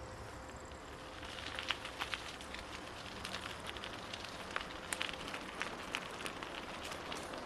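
A bicycle rolling over a rough, bumpy trail surface, with irregular clicks, crackles and rattles from the tyres and the shaking bike and camera. The clicks begin about a second in, under a steady background rush.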